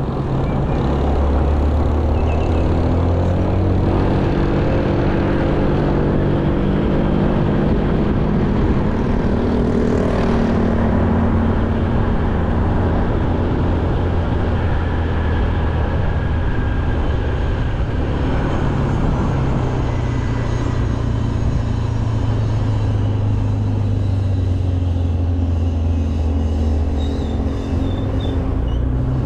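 A motor vehicle's engine running continuously, its low hum rising and falling in pitch as it speeds up and slows down, over a steady rush of noise.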